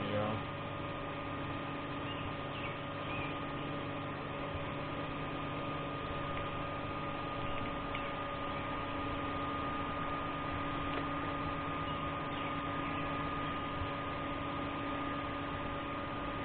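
A steady hum made of a few constant tones over a faint background noise, unchanging throughout.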